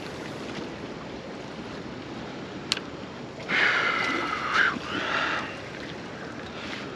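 Steady wash of wind and sea water around the rocks of a breakwater, with a single sharp click a little under three seconds in and two loud high-pitched calls about halfway through.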